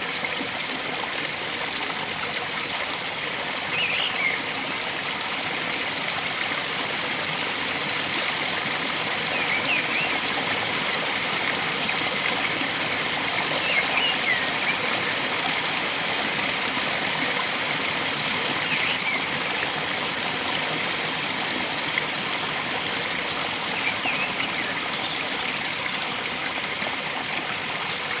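Stream water flowing and trickling steadily, with short bird chirps every few seconds.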